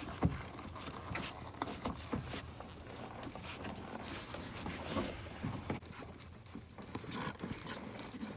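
Irregular small clicks, knocks and rustles of a wire being pushed slowly by hand through a car door's rubber wiring-harness boot.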